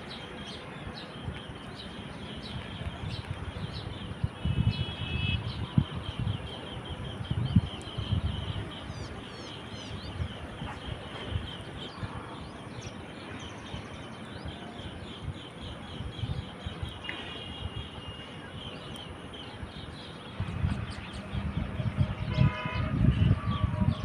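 A flock of green bee-eaters calling: runs of short, high chirps repeated in quick trills. Low rumbles come and go underneath, strongest about four to eight seconds in and again from about twenty seconds in.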